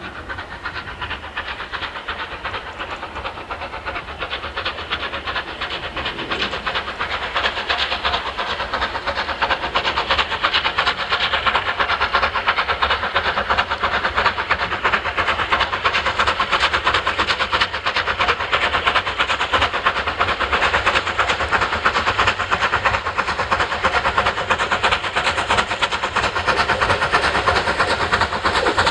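Unrebuilt Bulleid light Pacific steam locomotive working hard with a train, its exhaust beating in a rapid, steady rhythm and growing louder as it approaches, then holding loud.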